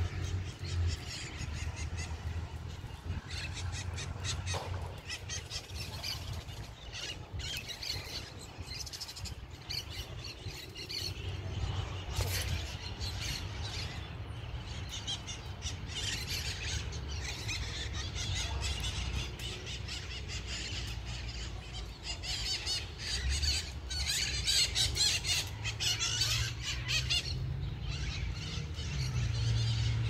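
Many birds chirping and calling at once, busiest in the second half, over a steady low rumble.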